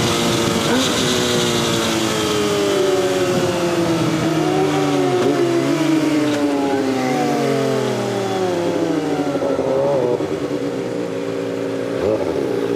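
Kawasaki ZX-25R's inline-four engine through a DX Generation Sphere aftermarket exhaust, its note falling steadily as the bike slows, with a couple of short rises along the way. It settles to a lower steady note near the end.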